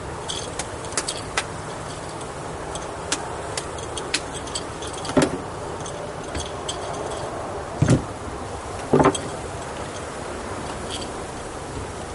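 Wooden beehive frames and boxes being handled: scattered light clicks and three louder knocks, about five, eight and nine seconds in, over a steady background rush.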